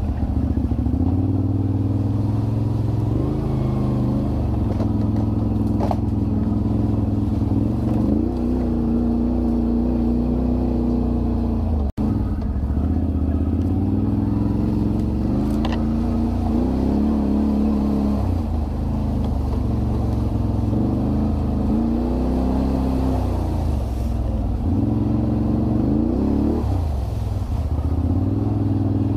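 Can-Am Renegade 1000 ATV's V-twin engine running under riding load, revving up and easing off over and over as the throttle changes. There is a brief dropout in the sound about midway.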